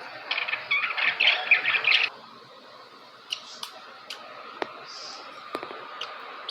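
Budgerigars chattering in a fast run of chirps for about two seconds. The chirping stops abruptly, leaving only a few scattered sharp clicks.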